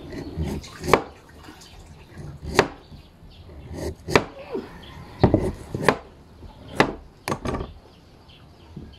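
Close-up eating of raw guava: about seven sharp, irregular crunches of biting and chewing the crisp fruit, with softer mouth noises in between.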